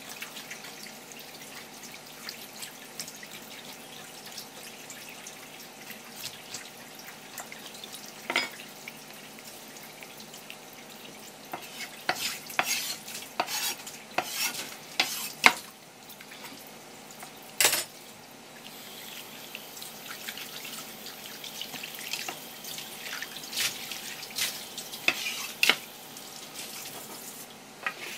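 Kitchen prep sounds: scattered sharp knocks and clatters of utensils, densest in the middle, over a steady low hum.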